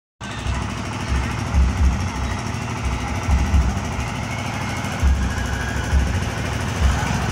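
Wind buffeting a phone's microphone: a steady rumbling hiss with irregular low thumps.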